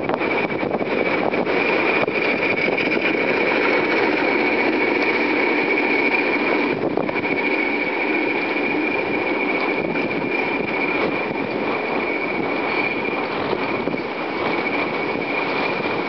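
A diesel-hauled heritage passenger train (a Class 37, a Class 20 and a Class 08 shunter) running away along the line. It makes a steady mix of diesel engine noise and rolling coaches, with a thin steady high whine over it.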